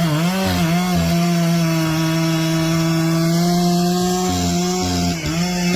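Two-stroke chainsaw held at full throttle, cutting through wood. Its pitch wavers at first, then runs steady with a brief dip about five seconds in.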